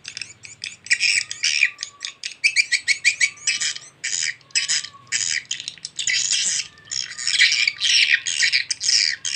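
Recorded swiftlet call (suara panggil walet) played through horn tweeters: dense, fast trains of high, buzzy chirps and twitters in a mating-type (birahi) call, a sound used to lure swiftlets into a nesting house.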